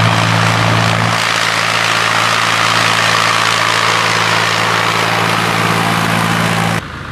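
Farm tractor engine running steadily under load as the tractor works soil with a 3-point-hitch pulverizer and passes close by. The sound drops off abruptly near the end.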